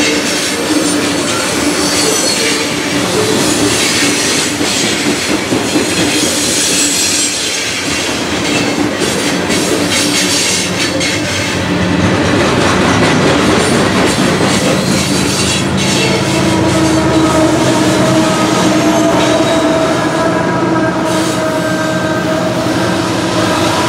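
Freight train of open-top coal cars rolling past close by: steel wheels clicking over the rail joints and squealing on the rails. A steady ringing squeal comes in during the second half, and the last cars go by near the end.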